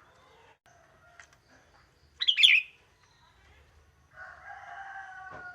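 Sooty-headed bulbul giving a short, loud, chirpy song phrase about two seconds in. From about four seconds in a fainter, drawn-out call slowly falls in pitch behind it.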